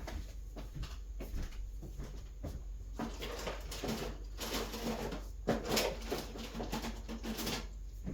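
Handling noise on a Lenovo ThinkPad P16 Gen 2 laptop as gloved hands push at its keyboard to slide it under the bezel: scattered clicks and taps with scraping of plastic, busier from about halfway through.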